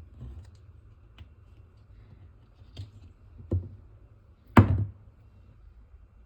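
A few separate knocks and taps, as of utensils or dishes being handled in a kitchen. The loudest knock falls a little over four and a half seconds in, and a firmer one about a second before it.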